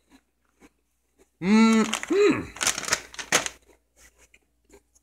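A short two-part hum from a man's voice, then the crackling crinkle of plastic potato chip bags being folded and handled, with a few faint rustles afterwards.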